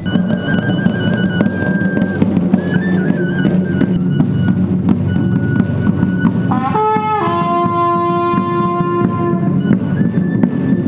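Trumpets and a drum of a Lenten street-procession band: the drum beats fast and without pause while the trumpets hold long notes, several pitches overlapping around the middle after a short slide in pitch. This trumpet-and-drum call marks the start of Lent.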